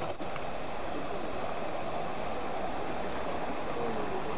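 A steady rushing hiss with a high, even chorus of crickets and other night insects running under it.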